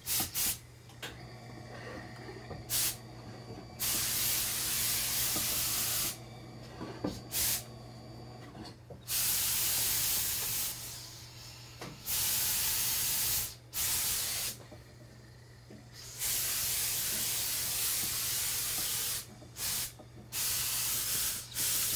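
Hose-fed steam iron blasting steam onto a mink fur coat: hissing in repeated bursts of one to three seconds, with a few short puffs between them. A steady low hum runs underneath.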